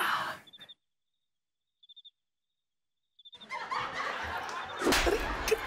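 Laugh-track laughter at the start, then a near-silent gap of about two and a half seconds with a few faint high chirps, then a louder, busy stretch of mixed noise from about halfway through.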